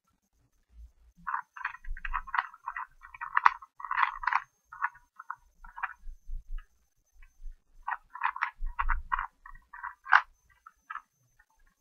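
Rubik's Cube being twisted by hand: quick plastic clicking and rasping of the layers turning, in two rapid flurries with a short pause between.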